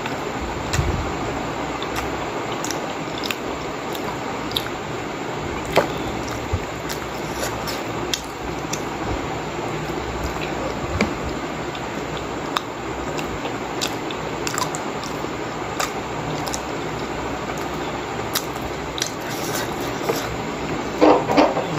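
A person biting into and chewing steamed pork momos, with scattered wet mouth clicks and smacks over a steady background hiss.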